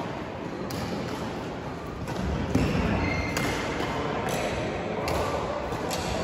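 Badminton rally: rackets striking the shuttlecock, a series of sharp hits about a second apart, echoing in a sports hall.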